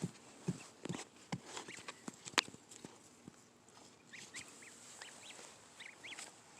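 Goslings peeping, faint short rising-and-falling peeps scattered through, with several sharp taps or knocks in the first two and a half seconds.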